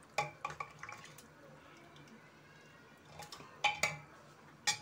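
A metal ladle clinking against the inside of a pressure cooker while stirring and scooping thin curry, with light sloshing of the liquid. The clinks come in a quick run at the start, a few more about three to four seconds in, and one near the end.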